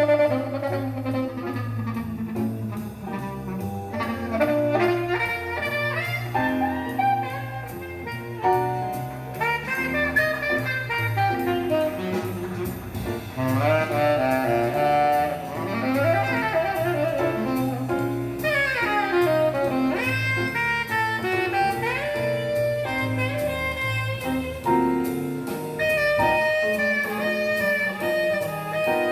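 Jazz recording with a saxophone lead over double bass, played through a single-ended valve amplifier with Miniwatt EL3N pentodes.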